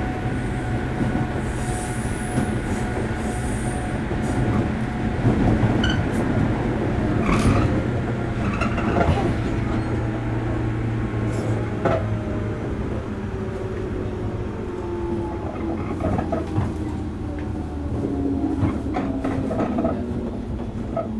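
Running sound of a JR Kyushu 103 series electric motor car, heard from the cab: a steady low hum of the traction motors and wheels on the rails, with a few sharp clicks along the way.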